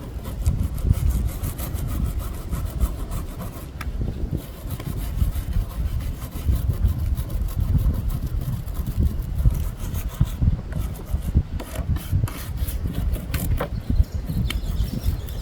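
Repeated scraping and rubbing strokes of a hand tool on the wood of an imbuia coffee table, working off paint softened by stripper, with a few sharp clicks.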